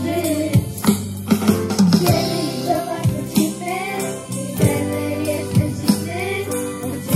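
Children singing a pop song in Polish to a live band of electronic keyboards, electric guitar, drum kit and shakers, with a steady drum beat.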